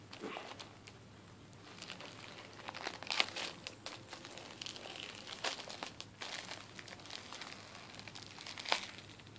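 Plastic wrapping on a Blu-ray case being picked at and peeled, crinkling and tearing with scattered sharp crackles, the loudest about three seconds in and near the end.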